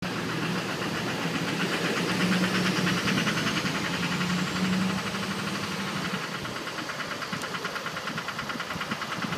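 2006 Duramax LLY 6.6-litre V8 turbodiesel running with a fast, even knocking clatter, which the owner suspects is an engine knock.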